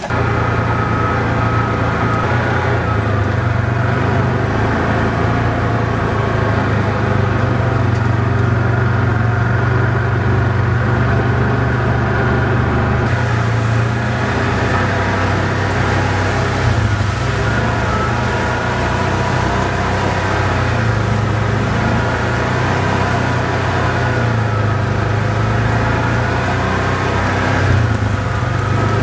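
Jeep engine running steadily at low speed as it crawls along a dirt trail, a loud, even drone.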